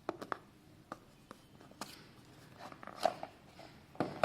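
Scattered clicks, taps and light knocks of hands handling a new smartphone and its packaging, with a sharper knock near the end.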